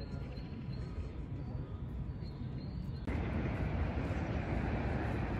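Outdoor park ambience: a steady low rumble that changes suddenly about three seconds in to a louder, brighter hiss.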